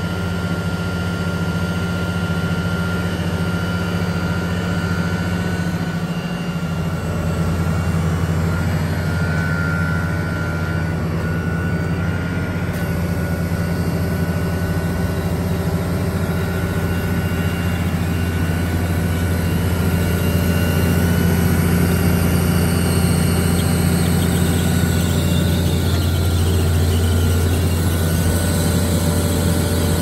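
Volvo ABG8820B tracked asphalt paver's diesel engine idling steadily, a low hum with a faint higher whine above it, growing a little louder in the last third.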